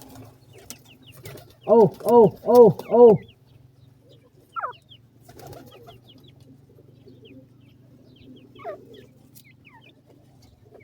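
A bird gives four loud calls in quick succession, each rising then falling in pitch. Faint high chick peeps sound throughout.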